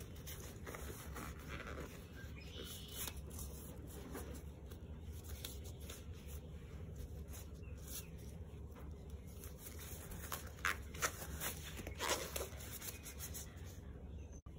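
Black disposable gloves rustled and crinkled by hand on a burlap-covered table, with a few louder crackles about ten to twelve seconds in.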